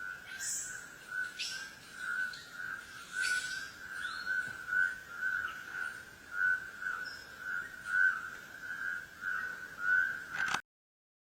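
An animal's continuous high whistling trill on one pitch, swelling and fading about once or twice a second, with a few short chirps over it. It cuts off abruptly near the end.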